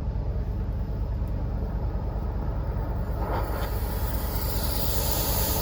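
Rushing air buffeting the microphone as a steady, low rumble, the airflow at a dryer vent being cleaned. A hiss of air swells in over the last second or so.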